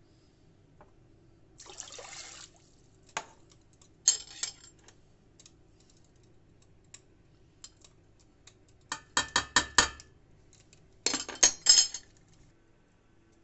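Crockery knocking against a stainless steel pot as salt and turmeric are tipped from a small plate into water: scattered clicks, then two quick runs of sharp clinking taps in the second half. A short hiss comes about two seconds in.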